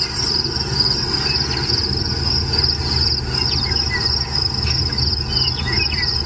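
Crickets trilling steadily in a continuous high-pitched chorus over a low steady rumble, with a few faint short chirps.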